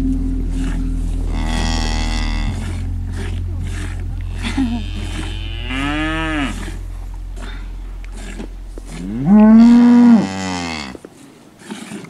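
Cattle mooing three times, a few seconds apart, the last call the loudest.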